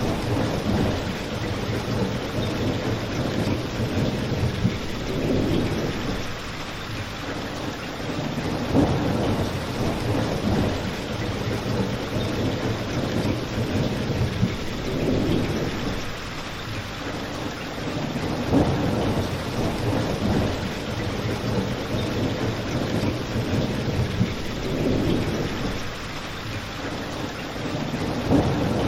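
Steady rain together with a crackling fire. Low rumbling swells rise and fall every few seconds, and a few sharp pops stand out about every ten seconds.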